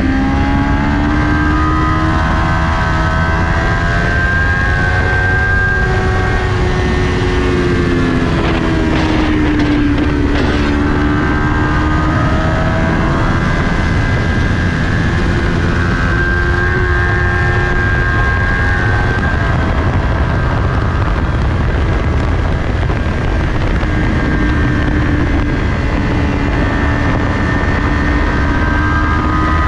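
2020 Kawasaki Ninja 400's parallel-twin engine heard onboard at racing speed, revs climbing and dropping through the corners and gear changes, over heavy wind noise.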